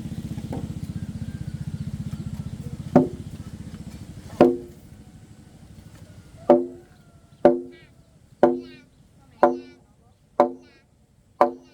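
Sharp blows on wood, first two spaced apart and then a steady run of about one a second, each a hard knock with a short ringing tone: wood being chopped or struck while building. Before the blows settle in, a small motor runs steadily and stops about four seconds in.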